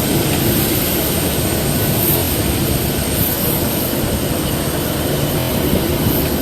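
Airliner engines droning steadily, heard from inside the passenger cabin.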